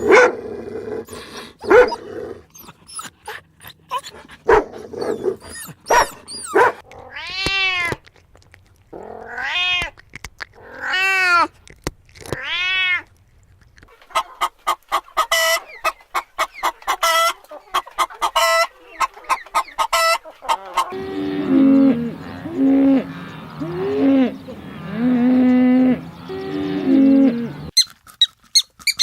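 A succession of different animal calls, one species after another. Around eight to thirteen seconds in come four long calls that rise and fall in pitch. These are followed by a fast run of short calls, and then a series of lower calls that step up and down in pitch near the end.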